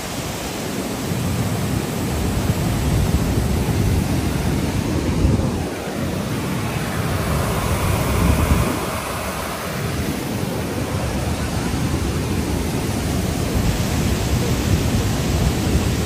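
A waterfall and its rapids rushing in heavy flow: a loud, steady roar of falling water with a deep rumble underneath, turning a little brighter and hissier for a couple of seconds around the middle.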